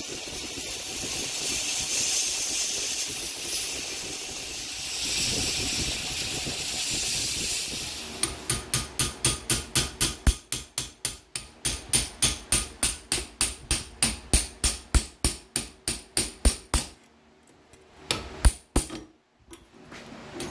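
Belt grinder grinding the edge of a san mai steel blade with a steady hiss for the first several seconds. It then gives way to rapid, even hand-filing strokes on the blade clamped in a vise, about three and a half strokes a second. Near the end the strokes stop and there are a couple of knocks.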